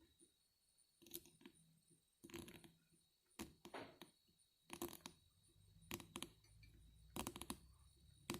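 Faint, scattered metal clinks and taps, about eight to ten, from a screwdriver working on a carburetor while an idle mixture screw is turned in by counted turns.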